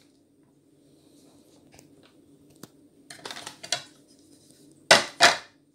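Plastic packet of chicken fry mix rustling and crinkling as the last of the powder is shaken out onto a plate, with a few light clicks and two loud rustles near the end, over a low steady hum.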